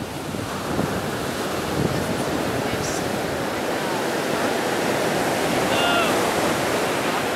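Steady rush of ocean surf on a beach, mixed with wind buffeting the microphone.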